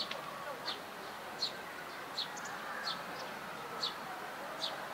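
A small bird chirping over and over: a short high note repeated about every three-quarters of a second.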